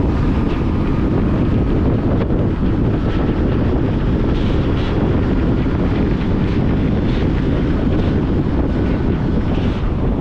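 A car driving on a road: a steady, loud low rumble of tyre and wind noise with no break.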